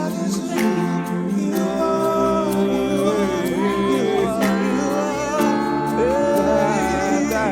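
Live worship music: sustained keyboard chords with a bass line coming in about a second and a half in, a voice carrying a wordless melody, and a light ticking beat.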